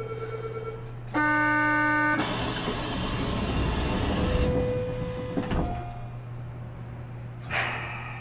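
Inside an Osaka Metro New Tram 200 series car at departure from a station: a steady tone stops about a second in, then a loud door buzzer sounds for about a second, followed by a rush of noise and knocks as the doors slide shut, over a constant electrical hum.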